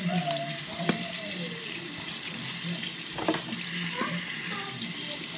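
Bathroom sink tap running steadily into the basin, an even hiss of water.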